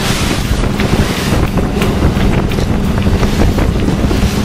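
Wind buffeting the microphone over the rush of sea water along a small sailboat's hull, with a faint steady low hum underneath.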